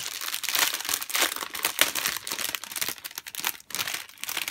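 Clear plastic sleeve of a diamond-painting canvas crinkling as it is handled: a continuous run of irregular crackles and rustles.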